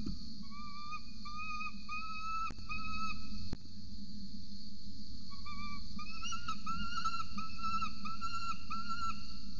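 Peregrine falcon calling: short whistled notes repeated about three a second, in two bouts with a pause of about two seconds between them, over a steady high hiss.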